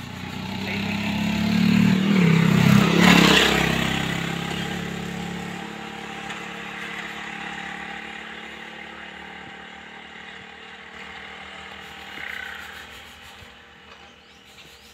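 A motor vehicle engine passing by on the road, growing louder to a peak about three seconds in and then fading away.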